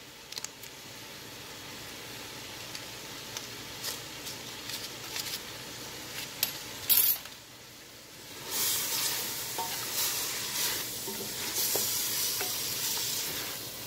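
Chunks of meat sizzling as they fry in a stainless steel pot, turned with a wooden spatula that scrapes and clicks against the pot. A few sharp knocks come about seven seconds in, and from there the sizzling grows louder as the meat is stirred.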